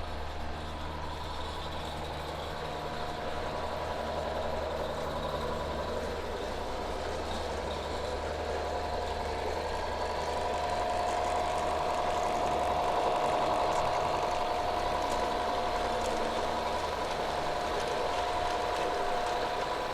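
A model locomotive running along garden railway track, giving a steady mechanical whine over a low hum that grows a little louder about two-thirds of the way through, then eases.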